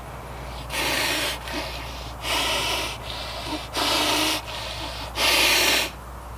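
A person huffing angrily: four loud, forceful breaths about a second and a half apart, the last the loudest.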